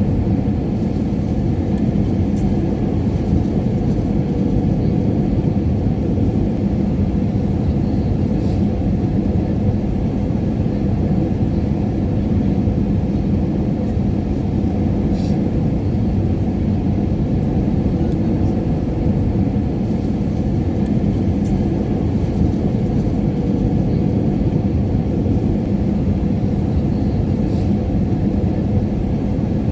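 Airliner cabin noise in flight: a steady low rumble of engines and airflow with a constant hum, and a few faint ticks.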